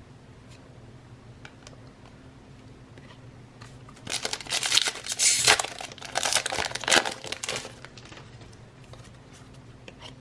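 Foil wrapper of a Donruss football card pack crinkling and tearing as it is opened, a spell of about three and a half seconds beginning about four seconds in.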